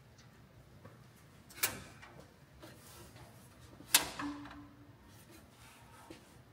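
Two sharp knocks on the metal of a 1969 Ford F100's open engine bay, about two seconds apart, from hands working under the hood. The second knock is louder and rings briefly. The engine is off, not yet started.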